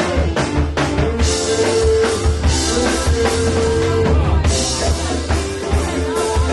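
Live band playing: drum kit with bass drum, a deep pulsing bass line and long held notes over it, with a quick run of drum hits in the first second.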